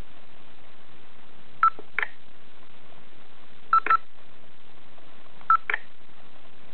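Three touchscreen key beeps from a portable GPS navigator, each a short electronic tone followed closely by a light stylus tap on the screen, over a steady background hiss.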